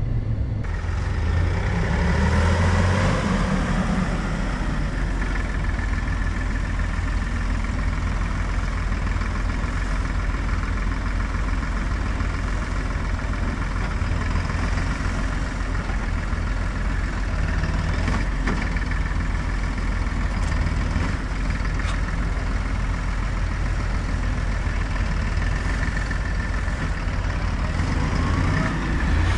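Dually pickup truck driving and towing a loaded hay-bale trailer: steady engine rumble and road noise, swelling briefly a couple of seconds in.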